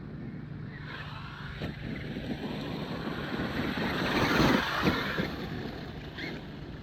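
Traxxas X-Maxx electric RC monster truck driving across icy ground. Its motor whine and tyre noise build from about a second in, are loudest around four and a half seconds with a couple of knocks, then fade as it moves off.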